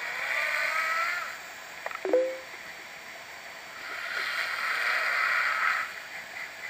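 Snoring: two long snores about four seconds apart, in the slow rhythm of a sleeper's breathing. A short, sharp sound comes between them about two seconds in.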